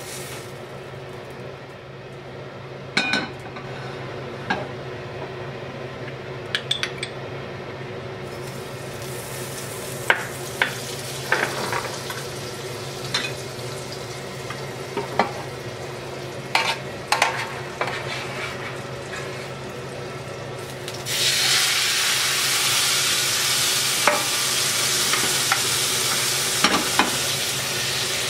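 Cooking in an All-Clad stainless steel pan on a gas stove: tongs click and clink against the pan, and melting butter sizzles faintly. About three-quarters of the way through, a much louder, steady sizzle starts suddenly as salmon goes into the hot butter.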